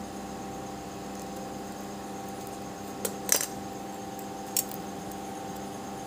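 A few sharp clicks and taps of small hard craft tools being handled against a hard floor, once about three seconds in, a quick cluster just after, and once more about a second and a half later, over a steady background hum.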